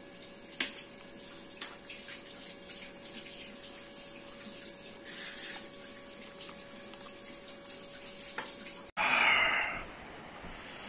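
A metal fork and knife clink sharply against a baking dish a few times, over a steady background hiss. Near the end there is a short, loud burst of rustling.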